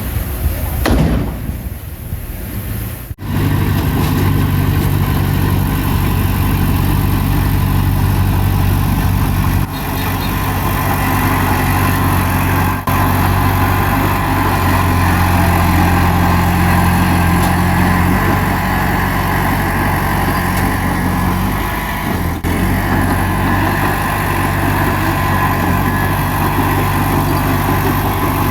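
Bulldozer's diesel engine running steadily from about three seconds in, with its pitch rising for a few seconds in the middle. The sound breaks off sharply a few times, as at edit cuts.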